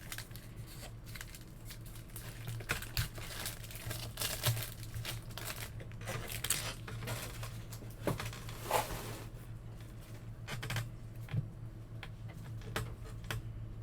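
Bowman baseball card packs being torn open and their wrappers crinkled as the cards are handled: a run of scattered rustles and small clicks over a steady low hum.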